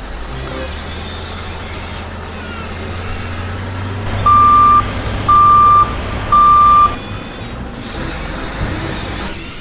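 Three loud electronic beeps on one high pitch, each about half a second long and about a second apart, over a steady low engine rumble.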